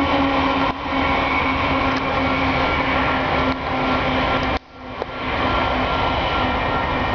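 Diesel locomotives of a CSX double-stack freight train, led by GE ES44AC #855, passing with a steady engine drone and rumble of wheels on rail. The sound drops out briefly near the start and again at about four and a half seconds, then carries on.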